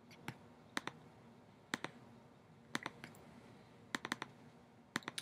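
Faint computer mouse clicks, about once a second, most in quick pairs like a press and release or a double-click.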